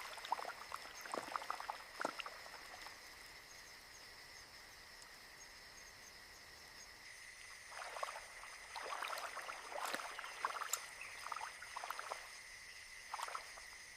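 Swamp ambience: a faint, steady chorus of high-pitched calls from frogs and insects, with irregular bursts of wet clicking and splashing in the first couple of seconds and again through the second half.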